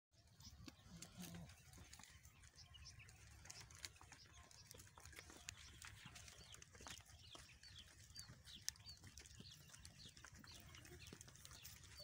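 Goat herd milling on dry dirt, heard faintly: scattered small clicks and rustles of hooves and bodies, with short high chirps here and there over a low rumble.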